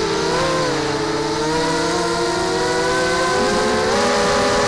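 Blackout Mini H quadcopter's Tiger 1806 2300KV brushless motors spinning Gemfan 5x3 propellers in flight: a buzzing whine made of several close tones. The pitch wavers, sags a little early on and rises about three and a half seconds in as the throttle changes.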